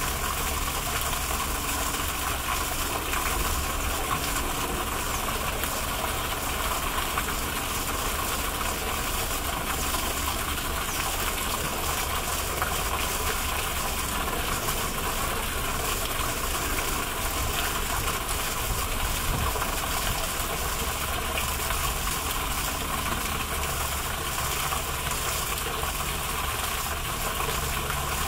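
Steady rush of water from a pond fountain, even and unbroken, with a low rumble underneath.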